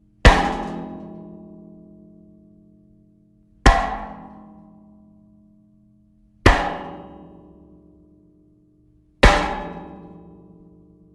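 Metal body-hit sound effect: four sharp metallic impacts with a thud, about three seconds apart, each leaving a ringing tail that fades away, much like a frying pan striking someone.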